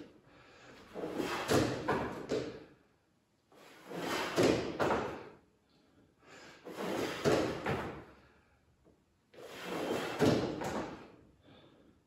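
A person doing a single-leg dumbbell exercise, one slow repetition about every three seconds, each rep a two-second cluster of knocks, thuds and scuffing movement.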